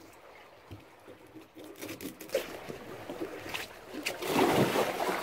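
A few light knocks and clicks as rope is handled on the boat, then about four seconds in a louder splash and rush of water as a person steps off the boat into the shallow river, with water sloshing on after.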